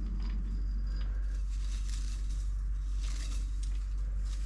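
Steady low machine hum, with faint scattered crackling and rustling over it.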